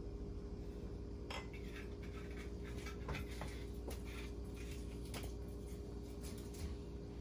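Dishes and utensils clinking and clattering at a kitchen sink, a string of small knocks starting about a second in, over a steady low hum.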